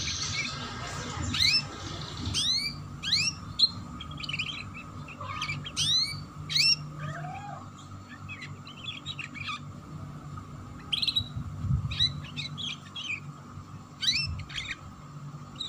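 Domestic canary giving scattered short chirps and sweeping call notes, with a few brief chattering bursts, in the 'ngeriwik' chatter style.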